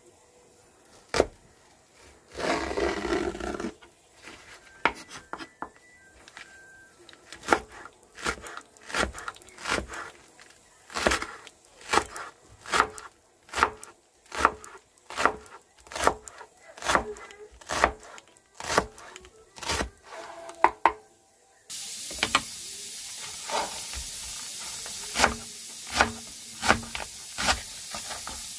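Kitchen knife slicing leeks on a wooden cutting board: a steady run of chopping strokes, a bit more than one a second, each a sharp knock of the blade on the board. A steady hiss comes in suddenly about two-thirds of the way through and runs under the strokes.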